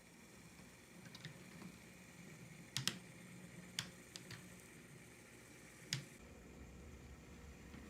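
HO scale model train running on the layout: a faint low hum with a handful of sharp, small clicks from wheels and couplers on the track, the loudest about three, four and six seconds in.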